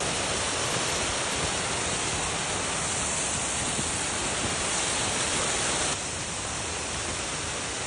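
Steady rushing of a small mountain waterfall, the water's noise even and unbroken, dropping slightly in level about six seconds in.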